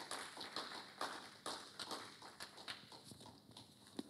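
Faint, scattered clapping from a small congregation: irregular separate claps that thin out and die away.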